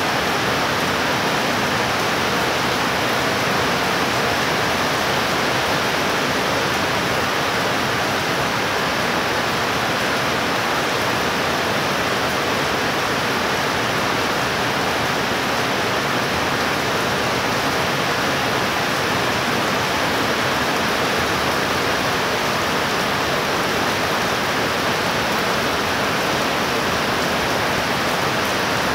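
Heavy tropical-style downpour: rain falling hard and steady in a loud, even hiss that does not let up.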